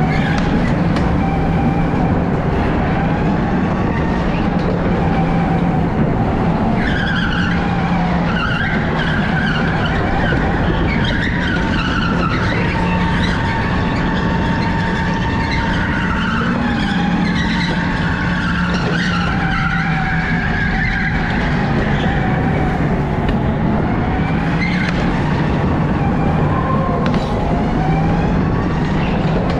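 Electric go-kart running at speed, its motor giving a steady tone over a constant rush of noise. From about seven seconds in until about twenty-one seconds, the tyres squeal in wavering tones as the kart slides through the corners on the slick track surface.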